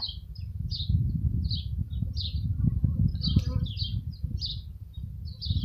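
A small bird chirping over and over in short, high notes, about two a second, over a low rumble.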